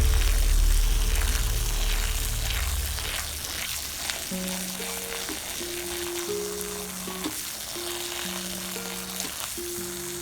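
Running water, an even crackling hiss, under a slow background melody of held notes; a deep bass tone sounds for the first few seconds before the melody comes in.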